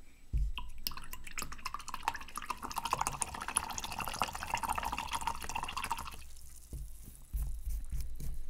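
Paintbrush swished and tapped in a cup of rinse water for about five seconds: a dense patter of small splashes and clicks. There are low handling thumps near the start and again near the end.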